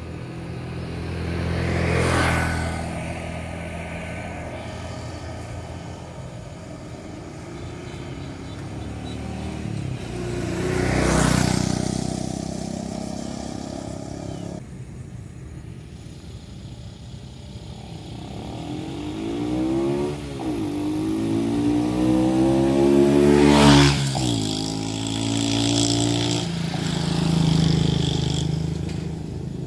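Road vehicles passing by: three pass-bys, about two, eleven and twenty-four seconds in, each swelling and fading. Before the last one an engine note climbs, dips briefly and climbs again as it approaches, then drops as it passes, over a steady low hum.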